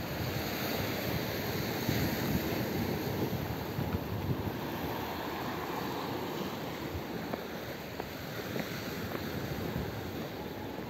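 Sea waves washing and breaking against a rocky shore, with wind buffeting the microphone.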